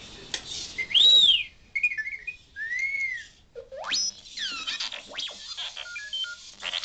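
R2-D2-style droid beeps and whistles played through a homemade robot's small loudspeaker. They come as arching whistles, quick warbling chirps and a fast rising sweep about halfway through. The loudest is an arching whistle about a second in.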